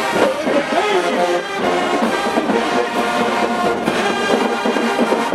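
HBCU marching band's brass section playing loudly, with sustained and shifting horn chords.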